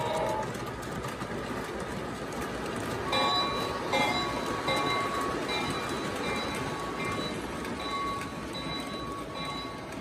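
O gauge three-rail model train, a Williams F7 diesel set with MTH RailKing passenger cars, running past close by: a steady rumble of wheels on the track. A steady high tone joins the rumble about three seconds in.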